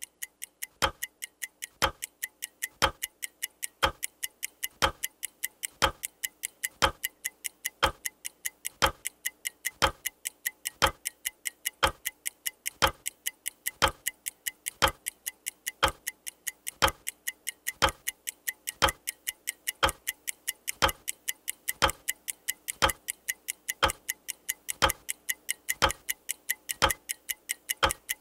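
Clock ticking steadily: a heavier tick about once a second, with lighter ticks in between, as the sound of a TV channel's on-screen clock.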